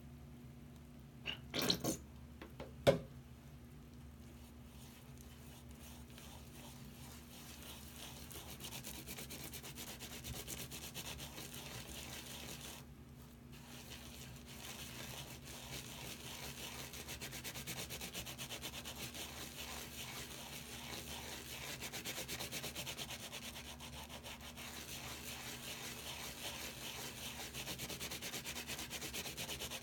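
Fingers rubbing and kneading a soapy round sponge, a steady scratchy rubbing that grows louder, with a brief pause about 13 seconds in. A few sharp clicks about two seconds in, as the soap bottle is squeezed onto the sponge.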